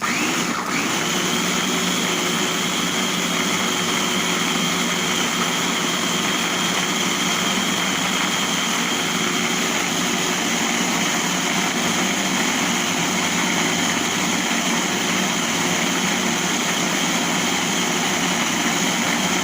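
Electric blender running steadily at one speed, grinding dried figs, garlic and olive oil into a paste; a loud, even motor hum with a constant whine.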